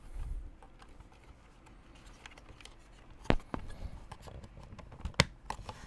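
Plastic dashboard trim and vent parts being handled, giving a few sharp clicks and knocks, the loudest about three seconds in and another about five seconds in.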